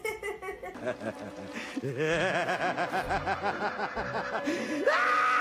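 A person laughing in a long run of quick, rhythmic chuckles, about five a second, that stops shortly before a held, higher-pitched vocal sound near the end.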